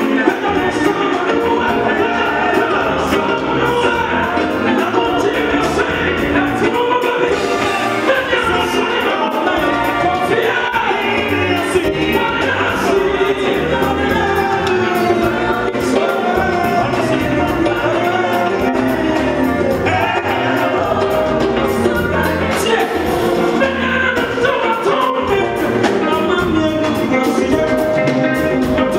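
Live Ghanaian gospel song: two male singers trading lines over a live band of electric guitar, hand drums and drum kit, with a steady driving beat.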